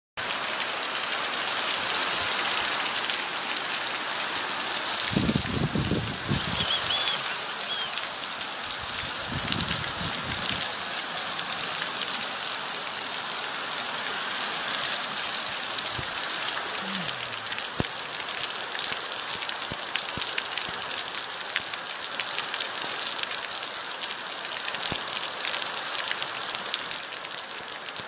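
Heavy rain pouring down on a flooded dirt street: a steady hiss of drops falling into standing water, with two brief low rumbles about five and nine seconds in.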